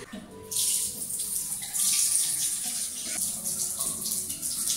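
Water running and splashing steadily, starting about half a second in.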